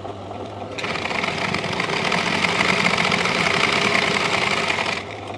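Mona sewing machine running steadily for about four seconds, stitching a seam along a folded fabric edge; it starts about a second in and stops sharply near the end.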